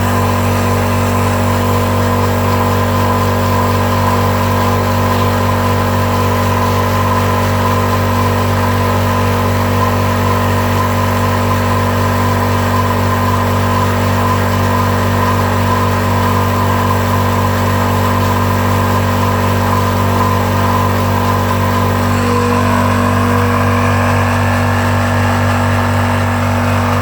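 High-pressure PCP air compressor running steadily with an even mechanical hum while filling an air rifle's air reservoir.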